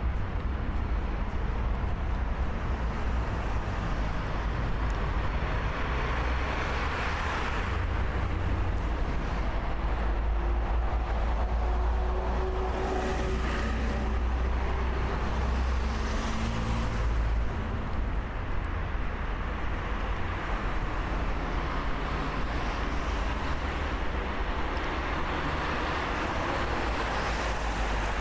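City street traffic: a steady rumble of road vehicles with several cars passing one after another.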